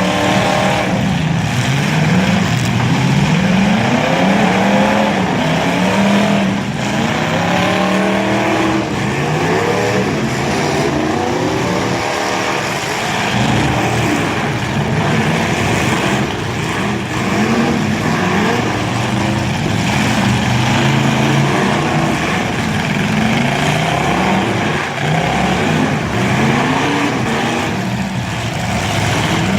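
Several demolition derby cars' engines revving up and down over one another, with a few brief knocks of impacts among them.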